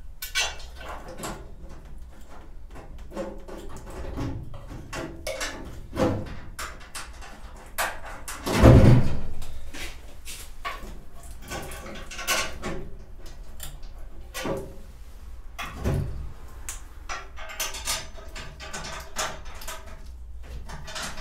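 Metal clicks, clanks and knocks from handling a freshly welded steel jig and tools while fitting it to the car body, with one heavy thud about nine seconds in and a lighter one near sixteen seconds.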